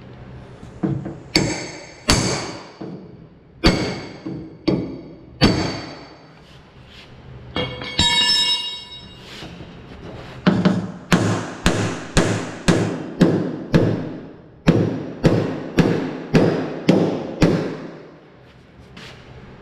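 Hammer blows on the steel shell of a car door as a dent is straightened: a handful of spaced strikes, a ringing metallic clang about eight seconds in, then a steady run of about two blows a second.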